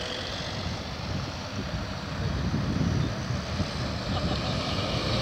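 A car driving past close by on an asphalt road, its engine and tyre noise getting louder in the second half.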